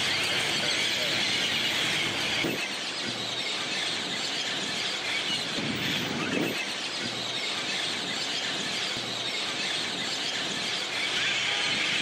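Dense, continuous chorus of a large bird roost: thousands of great-tailed grackles with green parakeets among them, all calling at once in a steady mass of overlapping high-pitched calls.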